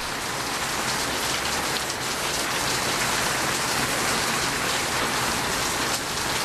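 Heavy rain pouring down, a steady, dense hiss of rain hitting the ground and surfaces.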